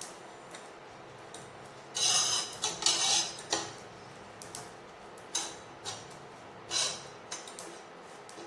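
Carom seeds and chopped garlic being stirred and scraped around a tawa griddle as they dry-roast: a run of short scrapes, several close together about two seconds in, then single ones every second or so.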